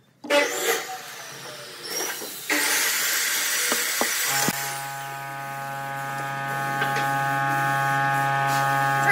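A hand file scraping across a wooden block. From about halfway it gives way to a steady hum made of several held tones, like a running motor.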